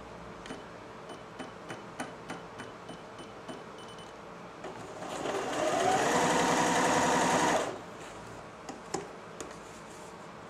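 Janome Jem Platinum 760 electric sewing machine sewing straight stitch in a short run. It speeds up at about five seconds in, runs steadily for nearly three seconds, then stops. A few light clicks come before and after the run.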